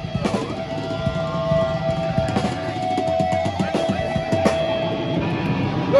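Live hardcore band playing loud, with an electric guitar holding one steady ringing note for about four seconds over scattered drum hits.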